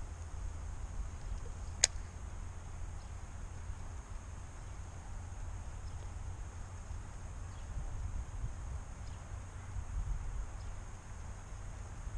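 Steady low outdoor rumble on the microphone, with one sharp click about two seconds in.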